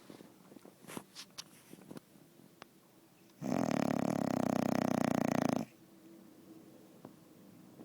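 American Staffordshire Terrier snoring in her sleep: one long, loud, fluttering snore of about two seconds, starting about three and a half seconds in, with faint ticks before it.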